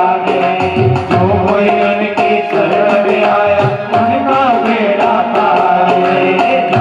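Devotional music with tabla drumming a steady rhythm under a melody of held and gliding notes.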